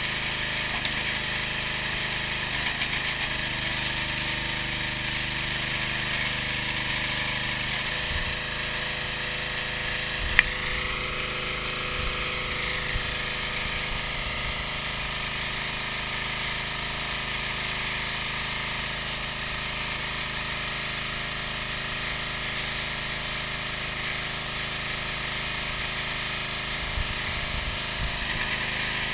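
Single-cylinder 6.5 hp Briggs & Stratton petrol engine of a hydraulic log splitter running steadily, driving the hydraulic pump. About ten seconds in, one sharp crack as a log splits under the ram.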